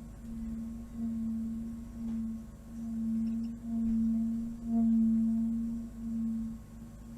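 Singing bowl held in a sustained ringing tone, its single low pitch swelling and fading about once a second.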